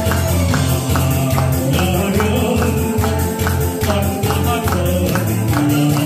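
Upbeat song accompaniment with a steady, bouncing bass beat and a melody line, played loud through PA speakers from a keyboard.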